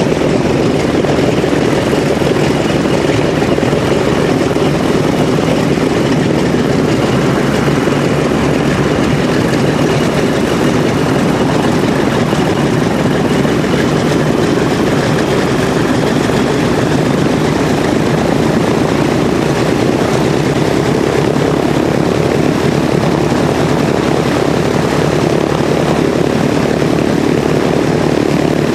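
Grumman TBM-3E Avenger's Wright R-2600 fourteen-cylinder radial engine idling steadily, with its propeller turning slowly.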